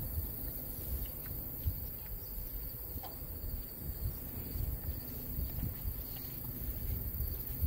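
Crickets and other insects droning steadily, over a low, uneven rumble, with a few faint clicks.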